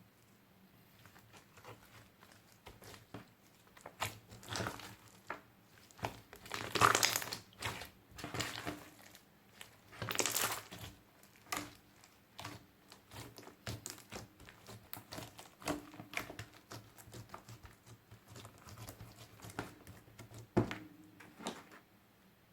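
Hands kneading and stretching clear slime mixed with glitter and beads, making irregular sticky clicks, pops and crackles. The louder squelches come about seven and ten seconds in.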